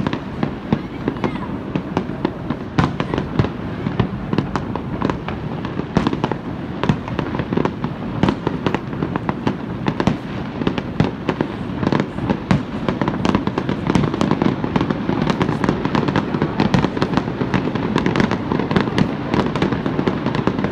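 Fireworks display bursting: a dense run of bangs and crackles, many a second, growing thicker and louder about two-thirds of the way through.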